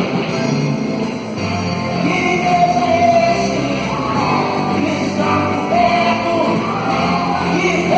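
A rock band playing with a voice singing a melody over it, the singing coming in about two seconds in.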